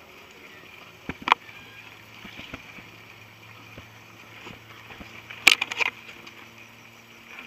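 Mountain bikes being pushed up a steep, rough dirt trail: scattered knocks and rattles of the bikes and footsteps on dirt, with two sharp knocks about a second in and a louder clatter a little past halfway. Under it runs a steady high-pitched drone.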